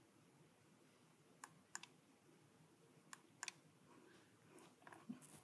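Near-silent room with four faint, sharp clicks in two pairs, from keys or buttons being pressed on a laptop to change the presentation slide.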